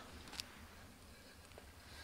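Near silence: a faint low rumble, with one small click about half a second in.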